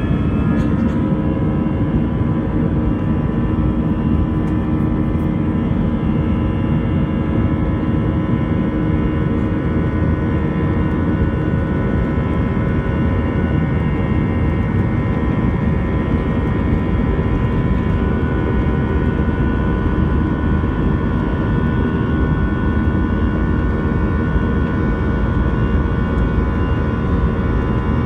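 Airbus A320 jet engines at takeoff thrust, heard from a cabin seat over the wing during the takeoff roll. The whine of the spooling engines levels off in the first second into several steady whining fan tones over a loud, even rumble.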